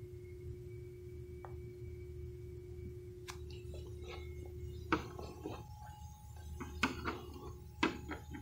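A steady low hum with a faint held tone, then from about five seconds in a run of sharp clicks and taps: a screwdriver working at the plastic push-pin clips of a pickup's radiator support cover.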